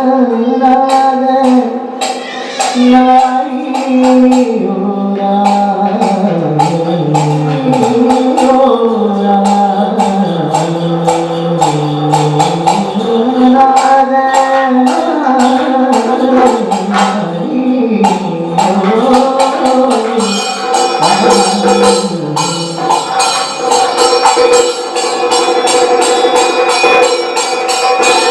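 Kathakali music: a low male voice sings a slow, wavering melody over steady strikes of metal hand cymbals. About two-thirds of the way through the voice drops out and the cymbal ringing grows denser.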